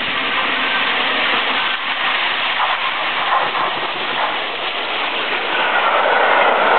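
Steam-hauled passenger train passing at speed, a continuous loud rumble with wheels clattering over the rail joints. A thin steady squealing tone comes in near the end.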